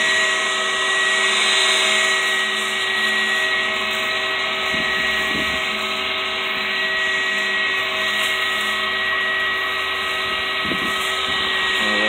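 Small 12-volt fan of a homemade ice-chest air conditioner running steadily: a constant high motor whine over rushing air. Partway through, a plastic bag rustles in its airflow.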